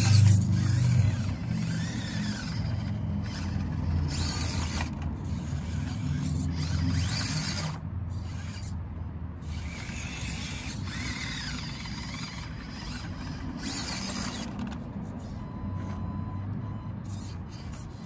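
Axial SCX24 B-17 Betty micro crawler driving over dirt and up onto rocks: its small electric motor and gears running, loudest in the first seconds and easing off after about seven seconds as it slows to crawl the rock pile.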